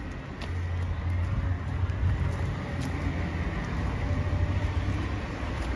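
Low, steady engine rumble of motor traffic on the road below, growing about half a second in and holding.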